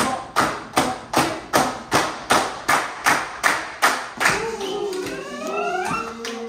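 A group clapping together in a steady beat, about two and a half claps a second. A little past halfway the clapping stops and several voices take up held, sliding sung notes.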